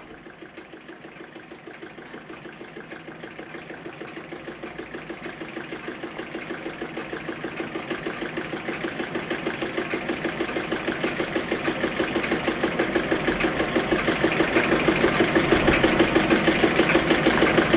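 Water-cooled Stirling hot-air engine running steadily, its flywheel and linkage making an even, rapid mechanical beat that grows steadily louder.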